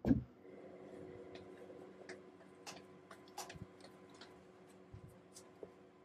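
A knock as the ARCO grinder's body is set down onto its base, then scattered light clicks and taps as it is handled and adjusted, over a steady low hum.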